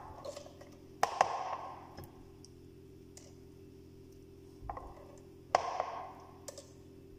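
Raw chicken drumsticks set into a glass bowl, knocking against the glass: about five sharp knocks, each with a short ring, the loudest about a second in and again past the middle.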